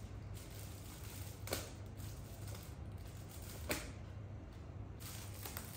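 Two light clicks or taps, about a second and a half in and again near four seconds, over a low steady hum.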